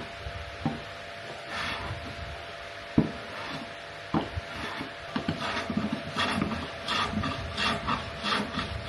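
Hand work on wood: a few sharp knocks, then from about halfway repeated scraping strokes, two or three a second, as wood is rubbed or rasped by hand.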